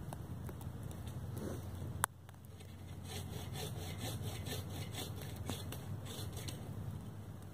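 Agawa Canyon Boreal 21 folding bow saw cutting through a fallen tree trunk, with steady back-and-forth strokes of the blade through wood. A single sharp click comes about two seconds in, and the quick, regular sawing strokes run on after it.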